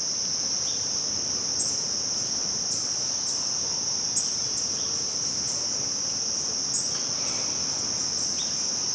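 Rainforest cicadas making a steady, unbroken high-pitched drone, with a few faint short bird chirps over it.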